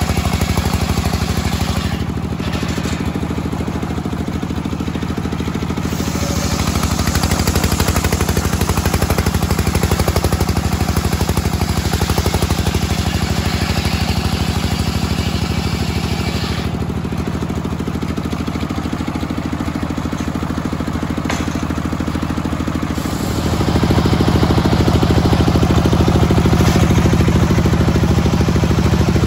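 Homemade circular sawmill with a large blade ripping a long teak beam: a steady mechanical hum under the hiss of the cut. About 23 seconds in the cut ends and the blade spins free, the hum growing louder.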